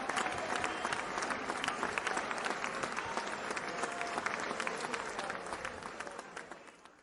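Crowd applause, a dense patter of many hands clapping with faint voices in it, fading away near the end before cutting off.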